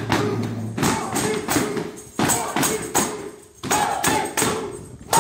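Music with a steady beat of sharp, jingling percussion hits.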